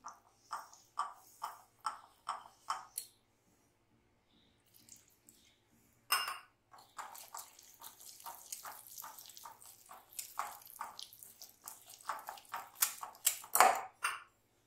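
Wire whisk beating a thick jalebi batter in a glass bowl, its wires clicking and scraping against the glass in quick rhythmic strokes. The strokes pause for a few seconds about three seconds in, then start again faster and keep going, with a louder knock against the bowl near the end.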